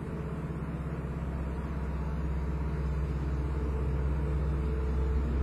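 Steady low rumble with a hum, slowly growing louder.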